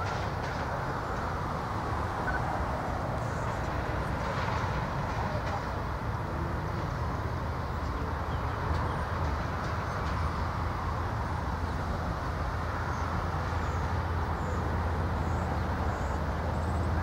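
Empty intermodal well cars of a freight train rolling past: a steady noise of steel wheels on the rails with a low hum underneath.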